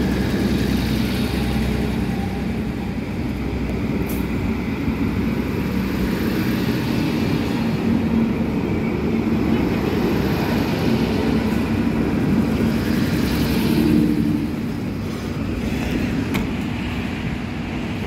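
NSW TrainLink Xplorer diesel multiple unit pulling out past the platform: a steady diesel engine drone with the rumble of its wheels on the rails as the cars roll by, easing off slightly near the end as the train draws away.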